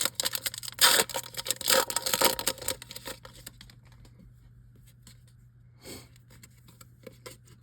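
Foil wrapper of a Topps Chrome baseball card pack being torn open and crinkled, with crackling rustles loudest in the first three seconds, then faint clicks and rustles of the cards being handled.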